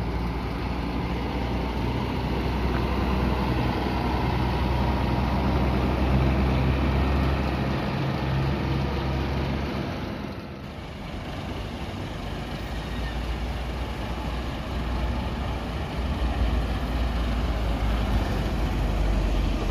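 Diesel bus engines running as buses pull away at low speed: a coach's engine gives a steady deep drone. Around ten seconds in, after a break, a second bus engine is heard, growing louder near the end.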